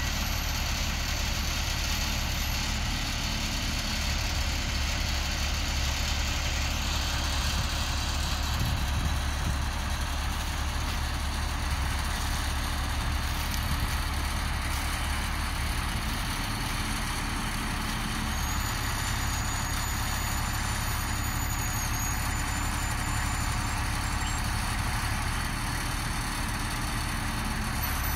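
GMC bucket truck's engine idling steadily, running the hydraulics that raise the aerial boom.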